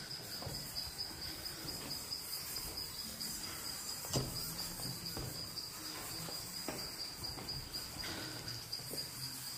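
Insects calling in one steady, high-pitched drone, with a sharp knock about four seconds in.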